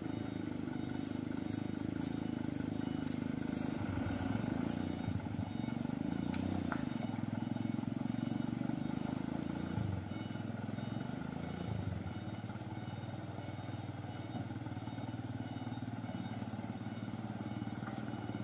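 Light diesel truck engine working under load on a steep, slippery climb. Its pitch rises and falls with the throttle, surging a couple of times around the middle.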